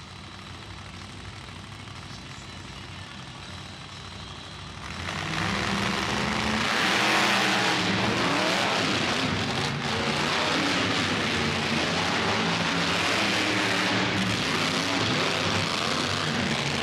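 Monster truck engine running and revving, rising sharply in loudness about five seconds in and then held at a high, wavering rev.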